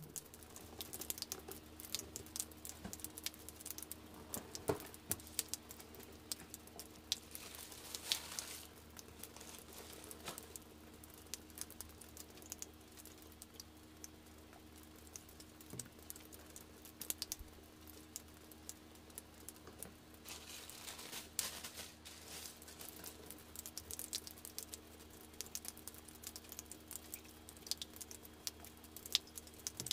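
Faint handling noise from hands turning a sneaker over its box: scattered light clicks and taps, with brief rustles of paper or packaging about 8 seconds in and again about 20 seconds in, over a faint steady hum.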